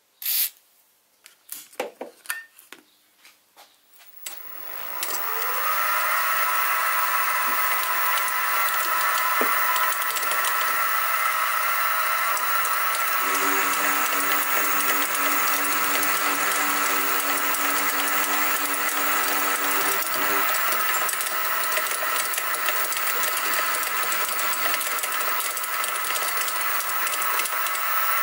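A brief squirt from an aerosol lubricant can and a few clicks, then the Sieg SX2P mini mill's spindle starts about four seconds in and runs with a steady whine while an end mill cuts the side of a metal block. A lower hum joins for about seven seconds in the middle.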